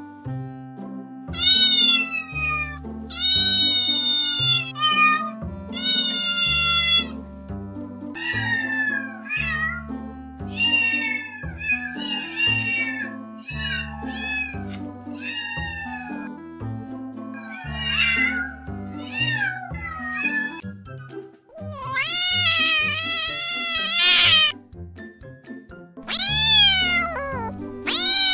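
Domestic cat meowing over and over, a string of calls that mostly fall in pitch, some drawn out and many short, with one long, loud meow about three quarters of the way through. Background music plays underneath.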